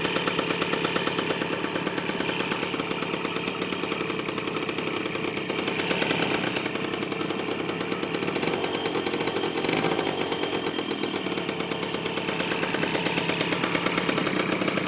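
Honda Giorno scooter engine running steadily at idle, with rapid, even firing pulses, cold, just after a full overhaul.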